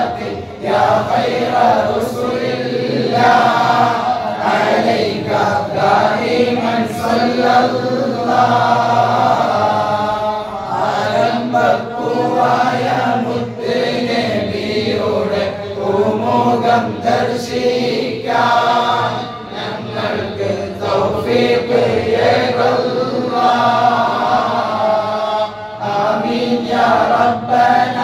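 A group of voices chanting mawlid verses in Arabic in praise of the Prophet Muhammad, one phrase after another with short breaths between them.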